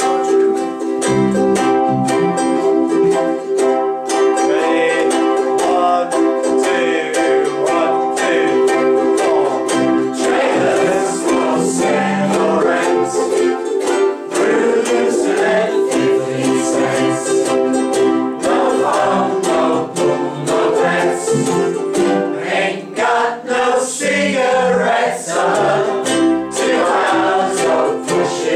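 Ukuleles strumming a steady rhythm with an acoustic bass guitar, and voices singing along.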